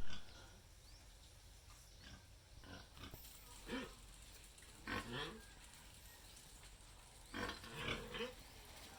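Pigs grunting faintly: several short grunts spread a second or more apart. A sharp click comes at the very start.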